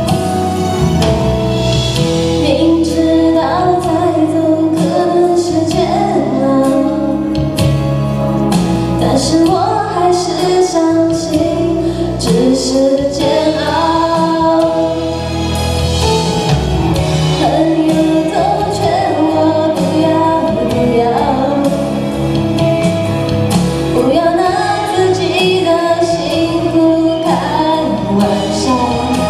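A woman singing a Mandarin pop song into a handheld microphone, over a musical accompaniment with bass and percussion.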